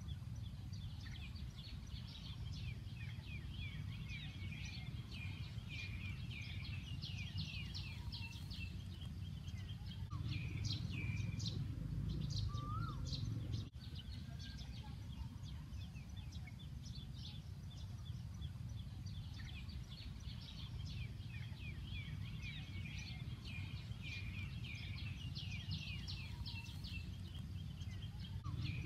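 Many small birds chirping and twittering in quick, overlapping calls over a steady low rumble.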